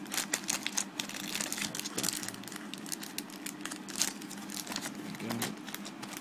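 Foil Pokémon booster pack wrappers crinkling and crackling as a hand flips through a row of them in a box, in quick irregular rustles.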